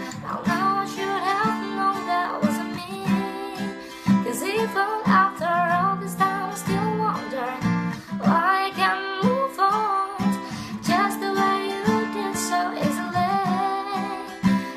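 Acoustic guitar strummed in a steady rhythm, with a woman's voice singing a melody over it.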